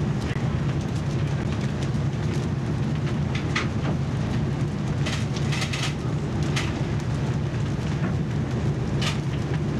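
Strong wind blowing across the microphone at sea, a steady low rumble with a few brief higher gusts.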